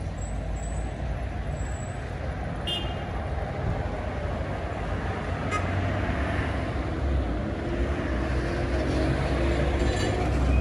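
City street traffic: a steady rumble of passing cars and engines, with a short horn beep about three seconds in.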